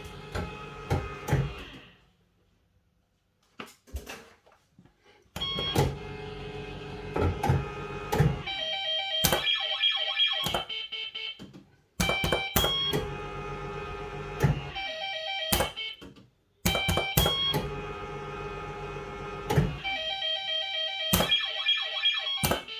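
A 1982 Bellfruit Firecracker fruit machine spinning its reels, with its electronic bleeping tones sounding while the reels turn and sharp clicks as they stop. There are three spins in a row after a pause of a few seconds near the start.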